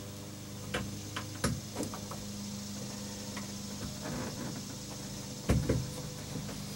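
Scattered clicks and light knocks of hands and tools working a wire connection to a voltmeter terminal in a cramped space behind a boat's bulkhead, the loudest two knocks close together about five and a half seconds in. A steady low hum runs underneath.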